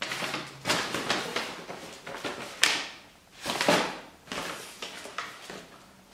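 Large paper takeaway bag being grabbed and shifted across a table, rustling and crinkling in a series of bursts, the loudest a little past halfway.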